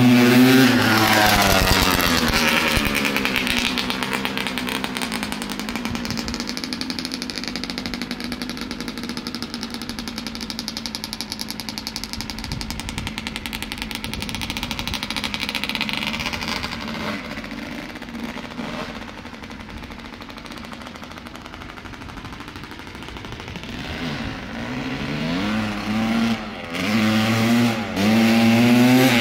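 A 1992 Kawasaki KX250 two-stroke motocross bike revs hard as it passes close, with the pitch rising and falling. It fades to a distant drone as it rides off. Near the end it grows loud again with rising and falling revs as it comes back.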